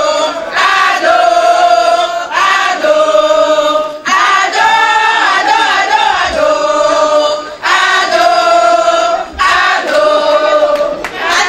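A crowd of rally supporters singing a chant together in unison, in short repeated phrases.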